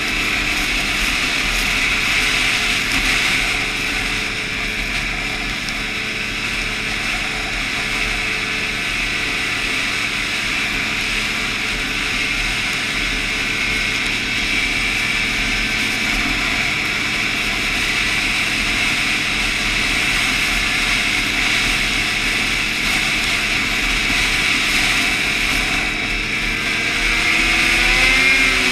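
Snowmobile engine running steadily while riding, its pitch climbing near the end as it speeds up.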